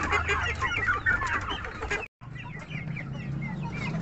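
A group of young Gaok chickens, about two months old, peeping and clucking in quick, overlapping short calls. The sound cuts out for a moment about halfway through, then the calls go on more sparsely.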